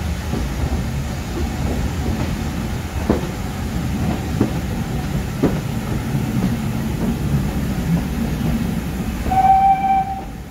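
Steam-hauled train running through a tunnel, heard from an open carriage window: a steady rumble with a few sharp clicks of wheels over rail joints. Near the end comes a short, steady locomotive whistle note, the loudest sound.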